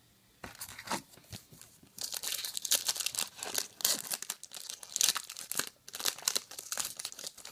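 A Topps trading-card pack wrapper being crinkled and torn open by hand: a few light clicks first, then a dense crackling from about two seconds in.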